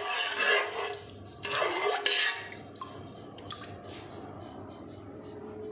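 A ladle stirring a watery masala in a pressure cooker pot: liquid swishing and sloshing for about two seconds, then quieter, with a few light clinks of the ladle against the pot.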